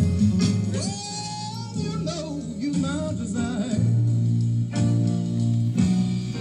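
A 1950s blues record playing: a singer over guitar and band, with the voice dropping out about four seconds in and the band playing on.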